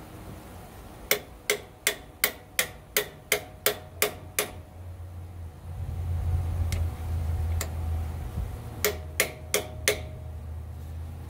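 Hammer blows on a bearing driving tool, starting a tight-fitting new transmission output-shaft bearing onto the shaft of a 1937 Terraplane pickup. There is a run of about eleven quick strikes, roughly three a second, then after a pause a second run of five. A low steady hum comes in about halfway through.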